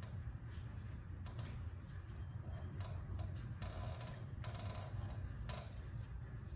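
Scattered light clicks, taps and rustles of hands working on a Ferguson TO-30 tractor's ignition wiring, over a steady low hum.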